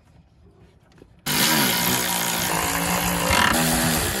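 Cordless power driver starting suddenly about a second in and running steadily as it drives a bolt on the Jeep's cowl, its motor whine sliding down in pitch at first and then holding; its tone changes briefly about three and a half seconds in.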